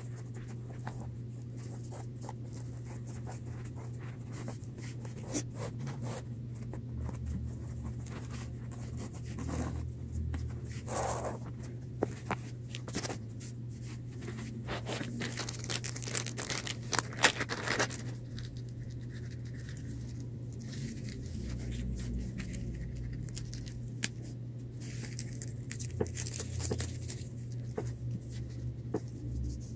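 Handling noise of a shoelace being threaded through a sneaker and the shoe moved on carpet: scattered scratchy rustles and small clicks, with louder rustling about eleven seconds in and again around sixteen to eighteen seconds, over a steady low hum.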